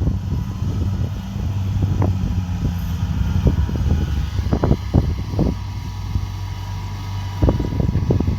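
Kubota DC70 Pro combine harvester's diesel engine running steadily, with scattered sharp knocks and clatter over the steady hum.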